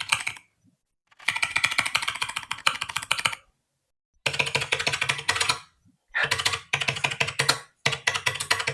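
AI-generated computer keyboard typing sound effects played back one after another: a short tail of one clip, then four bursts of fast, dense keystrokes, each one to two seconds long, with brief silences between. The typing sounds like someone angrily smashing their keyboard.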